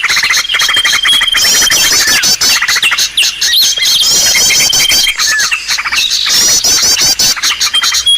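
Loud, dense chattering of several small songbirds from a bird-lure call recording. Quick high chirp trills repeat about every two and a half to three seconds over thin held whistles and constant ticking calls.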